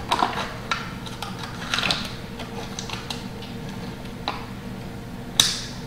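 Spoon scraping and tapping yogurt out of a small cup into a glass mixing bowl: a few light clicks, the sharpest about five seconds in, over a steady low hum.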